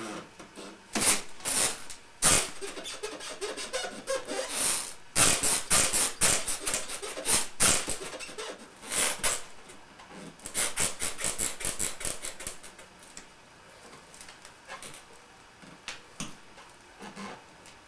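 A small doll's stroller squeaking and creaking again and again under the weight of a person sitting in it, in irregular raspy strokes that thin out over the last few seconds.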